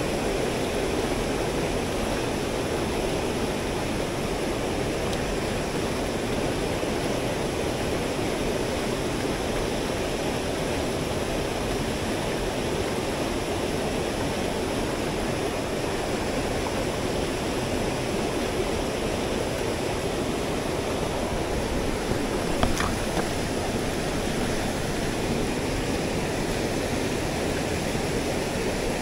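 Mountain headwater stream rushing steadily, still running high after heavy rain. A single brief click about twenty-two seconds in.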